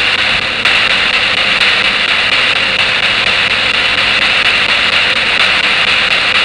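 Spirit box sweeping through radio channels: a loud, steady hiss of radio static with a faint low hum underneath.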